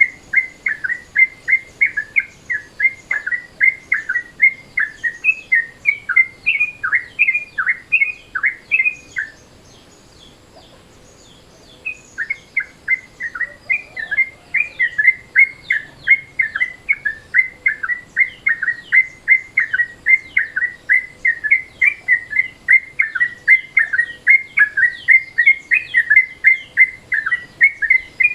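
Yellow-vented bulbul (trucukan) calling in its daytime mode: a fast, steady string of short chirping notes, about three a second, with a brief pause about a third of the way in before it resumes.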